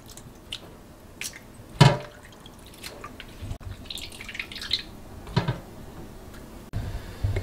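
Water dripping and trickling as pieces of wet pollock fillet are lifted out of soaking water into a metal mesh strainer, with two louder wet slaps about two and five and a half seconds in.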